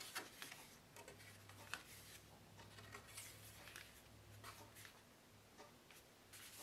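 Near silence with faint, scattered taps and rustles of cardstock flaps being lifted and flipped by hand.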